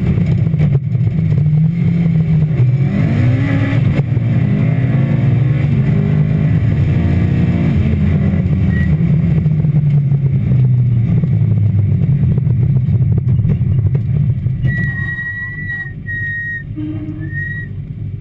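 Rally car engine heard from inside the cockpit, running hard with the revs rising and falling. About fifteen seconds in the engine eases off and quietens, and three short high-pitched beeps sound near the end.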